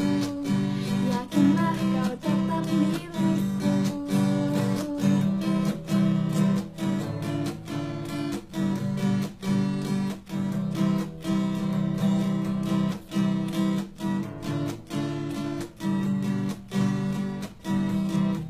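Acoustic guitar strummed in a steady, even rhythm, an instrumental passage with no singing.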